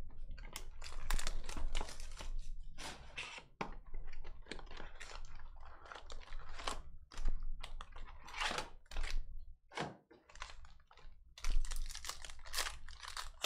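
Hands handling a Panini Donruss basketball hobby box and its foil card packs: an irregular run of crinkles, rustles and rips as packs are pulled from the box and a foil pack is torn open.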